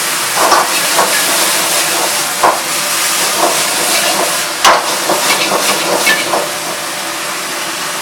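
Chicken stir-frying in a hot wok with sauce: a steady loud sizzle, with the utensil knocking and scraping against the pan about a dozen times until about six and a half seconds in, after which only the sizzle goes on.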